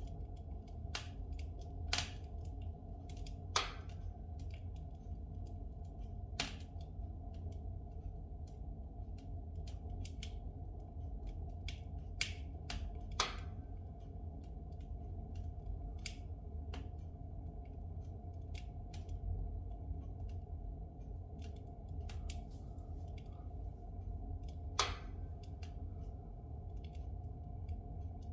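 Spruce logs burning in a fireplace: a steady low rumble of the flames with irregular sharp crackles and pops. A few pops stand out louder, scattered through the stretch.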